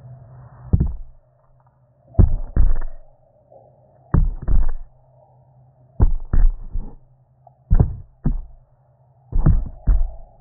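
Handling noise on a phone's microphone: groups of two or three dull thumps and knocks, with rubbing in between, coming about every one and a half to two seconds over a faint steady hum.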